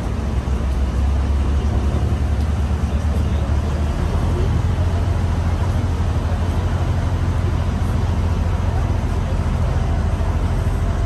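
Tour boat's engine running steadily, a low drone with a constant rushing noise over it.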